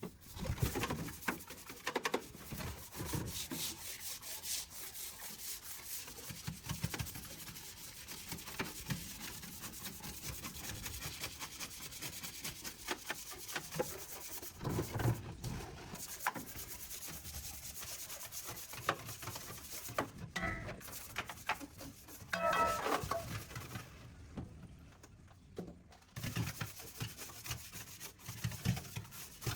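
Irregular hand scrubbing and scraping strokes, with scattered small knocks and clicks, as parts are cleaned by hand. A louder, slightly squeaky scrape comes a little past two-thirds of the way through, followed by a short pause.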